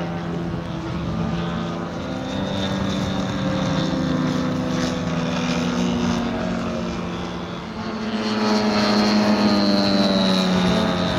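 Radio-controlled 3D aerobatic model aeroplanes' engines and propellers droning, the pitch rising and falling as the throttle changes through the manoeuvres. It grows louder about eight seconds in, with a high propeller whine on top.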